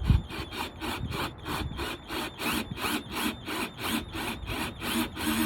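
A 2-inch hole saw on a drill cutting through the plastic tail light housing, a rhythmic rasping and squealing that pulses about four times a second as the teeth bite.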